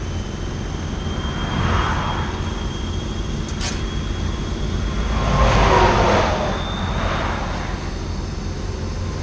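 Interstate traffic passing close by: a steady low rumble, with one vehicle swelling past about two seconds in and a louder one around six seconds. A single short click sounds between them.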